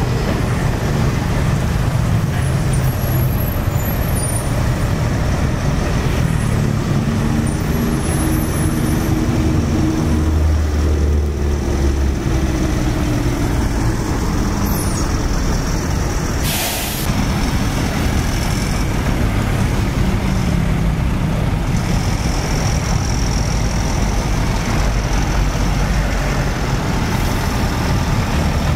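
Heavy tank-transporter trucks driving past close by, their diesel engines running with a steady low rumble; one engine's note rises and falls about ten seconds in. A short hiss of air brakes comes a little past halfway.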